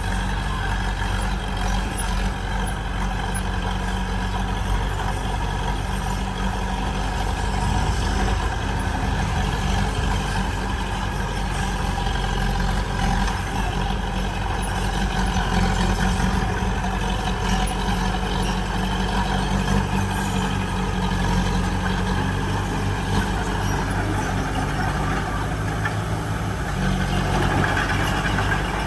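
Heavy diesel earthmoving machinery running steadily, with the engine rising slightly near the end.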